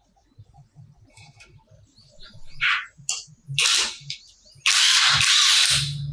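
Cordless impact driver hammering on the flywheel (magneto rotor) nut of a 1970s Honda 110cc engine to loosen it: a short burst, then a longer run of about a second and a half near the end. Before that, a few light metallic clinks as the engine's side cover is handled.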